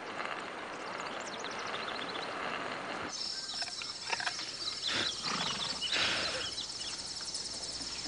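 Outdoor ambience: a steady rush like flowing river water, which changes suddenly about three seconds in to insects chirring in a steady high trill, with a few short scraping and rustling sounds over it.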